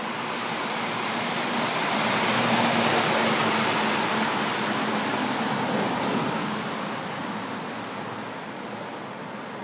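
A road vehicle passing close by: its tyre and engine noise swells to a peak about two to three seconds in, then fades away over the next few seconds.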